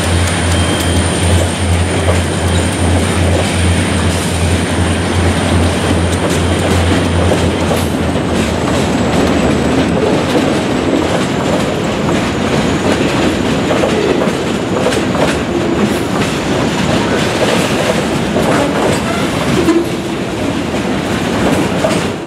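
Diesel locomotives of a freight train passing close by, their engines giving a low, pulsing drone that fades about eight seconds in. After that the freight cars roll past, wheels rattling and clacking over the rails.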